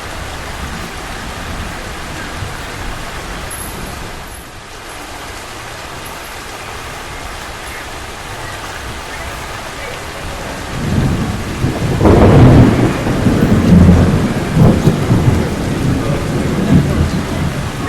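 Steady rain falling, then about eleven seconds in a long rolling thunder rumble builds, loudest a second or two later and still rumbling at the end.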